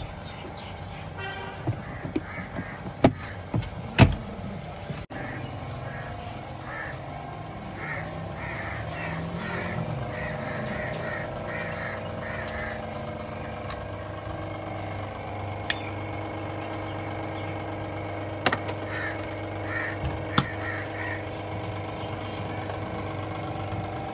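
Sharp plastic clicks and knocks from hands working behind a Toyota Grande's opened glovebox at the cabin air filter housing, loudest a few seconds in. After that a steady low hum, with birds calling in short repeated groups in the background.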